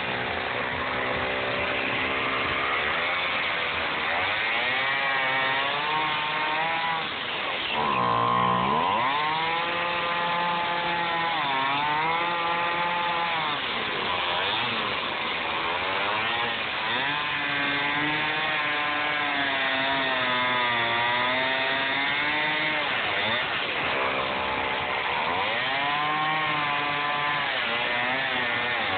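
Gas chainsaw running and cutting through a block of EPS foam, its engine speed rising and falling every few seconds.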